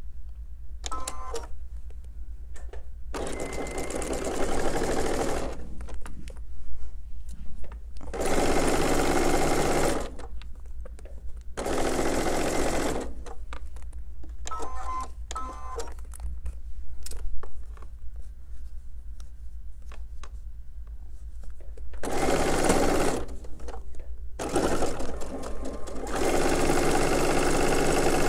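Sewing machine stitching a seam in about six short runs of one to three seconds each, stopping and starting with pauses between. A low steady hum runs underneath, and a few light clicks fall in the pauses.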